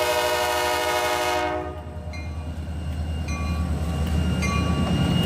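Diesel freight locomotive's air horn holding a long chord that cuts off about a second and a half in. After it come the locomotive engines' low rumble, growing louder, and the locomotive bell ringing about once a second.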